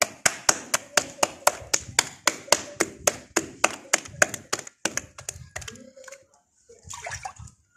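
Rhythmic hand claps, sharp and evenly spaced at about four a second, stopping about five seconds in.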